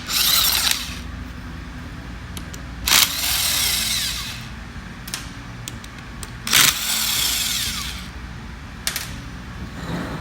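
Power tool driving out the bolts of a pump bearing frame, run in three short bursts of about a second to a second and a half, each starting sharply.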